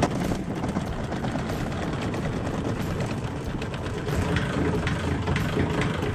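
Hand crank of a manual On the Fly jack plate being turned steadily, its screw mechanism raising a clamped outboard motor, with a continuous mechanical grinding.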